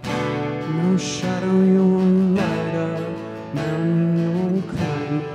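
Two acoustic guitars strummed as a worship song accompaniment, with a voice holding long sung notes that slide from one pitch to the next.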